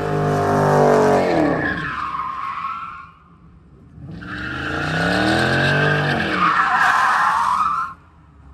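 Dodge Charger 392 Scat Pack's 6.4-litre HEMI V8 revving hard as the rear tyres spin and squeal in a smoky donut. The revs fall away and it goes briefly quiet about three seconds in, then a second burst of revving and tyre squeal builds and cuts off suddenly near the end.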